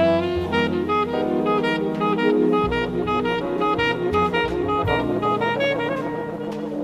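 Tenor saxophone playing a quick run of jazz notes over double bass and drums.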